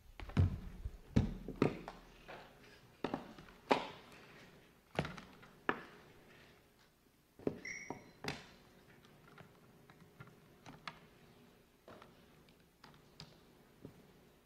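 Irregular knocks, taps and thumps of someone handling things at a lectern while setting up to speak, heaviest in the first few seconds and thinning out later, with a brief high tone about halfway through.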